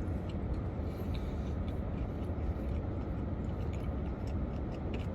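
A person chewing a mouthful of a chicken tender sandwich: faint scattered mouth clicks over a steady low hum.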